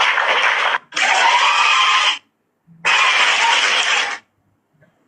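Loud harsh hissing noise that cuts in and out in three blocks, each a second or more long, with faint traces of a voice buried under it.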